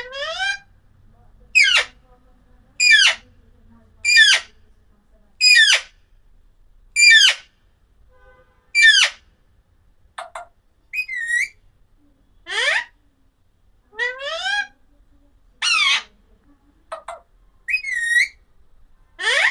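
A parrot giving a long series of short, harsh calls, one about every second, some sweeping quickly upward in pitch.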